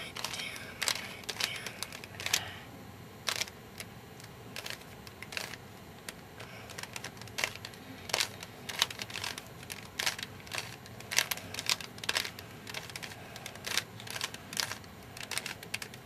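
Plastic Rubik's Cube layers clicking as they are twisted by hand: sharp clicks about one or two a second at uneven spacing, from the repeated right-face, down-face turns of the last solving step.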